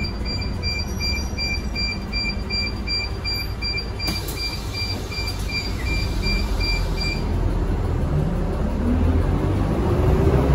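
Mitsubishi Fuso FE84 bus's diesel engine and road rumble, heard from inside the bus while driving, with the engine note rising as it speeds up near the end. A high electronic beep repeats about three times a second, stopping about seven seconds in.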